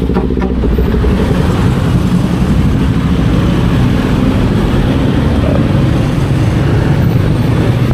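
Motorcycle engine running at a steady pitch while riding, mixed with road and wind noise.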